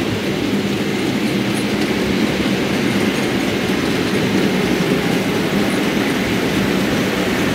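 00 gauge model train running on the layout's track: a steady hum of the locomotive's motor and wheels on the rails.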